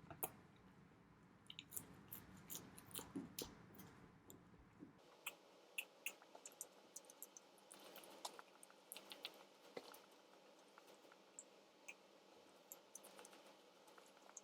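Faint chewing and biting of chicken nuggets, with many small scattered mouth clicks and wet sounds. A low background hum drops away about five seconds in.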